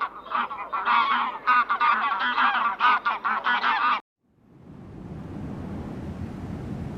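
A flock of waterfowl calling, with many short, overlapping calls in rapid succession. They cut off abruptly about four seconds in, and a steady rushing noise fades in.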